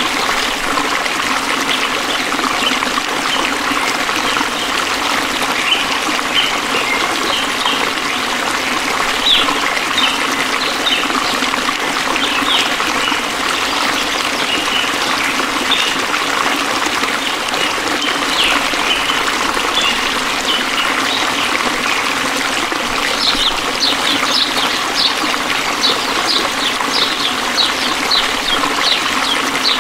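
A stream of water trickling and flowing steadily. Scattered high chirps from small animals sound over it, and in the last several seconds they become a quick, regular run of chirps.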